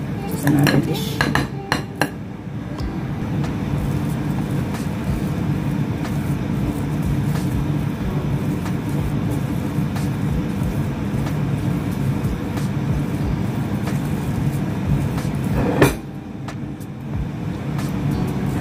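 A metal fork clinking and scraping against a ceramic bowl while mashed potato and flaked salmon are mixed, with a few sharp clinks near the start and again near the end. A steady low hum runs underneath.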